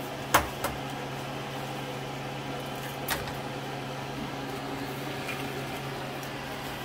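An egg tapped against the rim of a frying pan to crack it: two sharp knocks about a third of a second in, and another about three seconds in, over a steady low hum.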